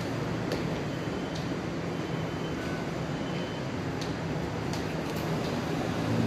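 Steady low hum and rumble of a tram stop with a tram on the tracks, heard through the glass platform screen doors, with a few faint clicks.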